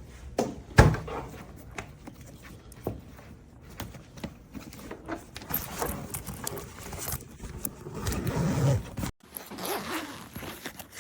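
Thick zippers on a laptop backpack being pulled open and shut in irregular strokes, with rustling and handling of the bag's fabric and small clicks of the zipper pulls. A loud knock about a second in, and a brief cut-out near the end.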